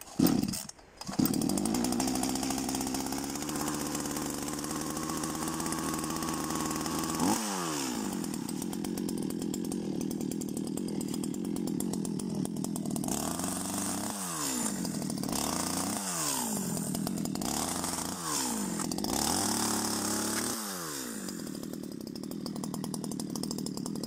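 Two-stroke chainsaw starting about a second in, then running and cutting through a dry log. Its engine speed sags and recovers several times as the chain bites into the wood.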